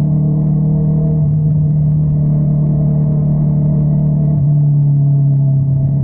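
Honda CBR650R's inline-four engine breathing through an Akrapovič exhaust, running at a steady note that wavers only slightly.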